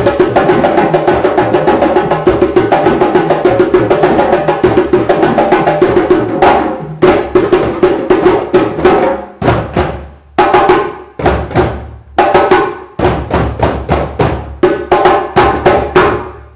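A drumming group playing together: a fast, even run of drum strokes, which about six seconds in breaks into short clusters of hits with brief pauses between them, and stops near the end.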